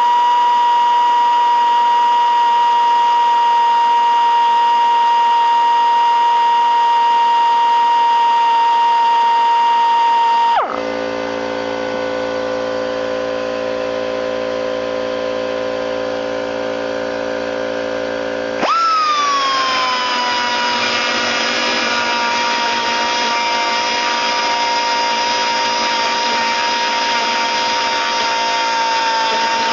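Central Pneumatic 1/4 inch air die grinder running with a steady high whine. About ten seconds in its pitch falls sharply to a lower, quieter hum. About eight seconds later it jumps back up and settles to the high whine.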